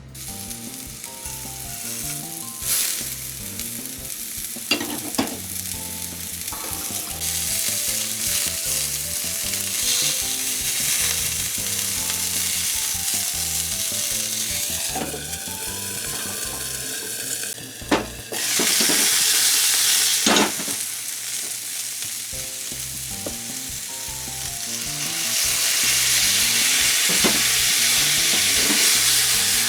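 Food frying in hot oil in a pan: a steady sizzle that grows louder about 25 seconds in, with a few sharp clicks along the way.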